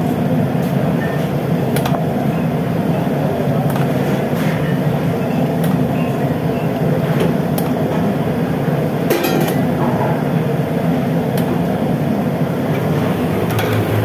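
Steady low rumbling kitchen noise, as from a large burner or extractor running, with a few light clicks now and then.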